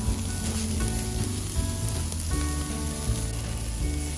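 Fatty beef skewers sizzling and crackling on a wire grill over a charcoal fire, with background music playing over it.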